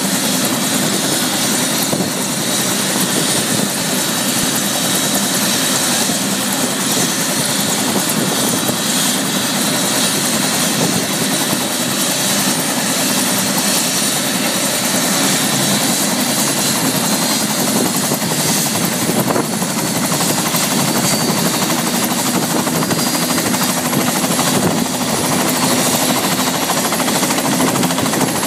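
Bell 206 JetRanger helicopter running on the ground with its two-blade main rotor turning, a steady loud rotor and turbine noise with a thin high whine over it.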